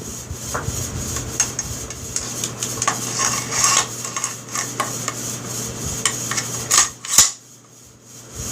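Stevens 320 pump shotgun parts clicking and scraping together by hand as the slide is fitted back onto the receiver. There are two sharper clacks near the end.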